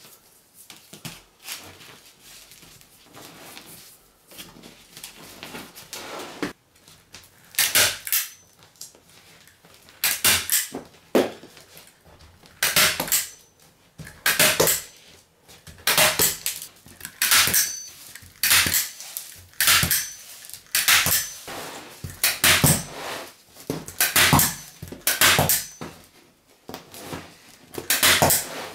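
Woven fiberglass roving being handled and wrapped around a foam frame: soft rubbing of cloth at first, then from about seven seconds in a series of short, sharp scraping strokes, roughly one every second or so.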